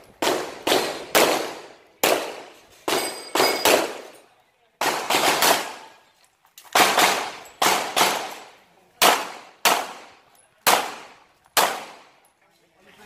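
Handgun fired in rapid pairs and short strings, about twenty shots with brief pauses between groups, each shot ringing out and dying away. A few hits ring on steel targets.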